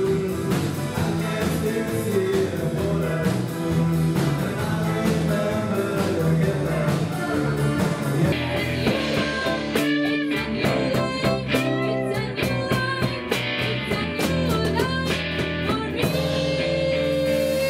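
Live band music, rock/blues style, with drums, electric bass and guitar behind a singer's voice. The music changes abruptly about eight seconds in and again near the end, as different performances are cut together.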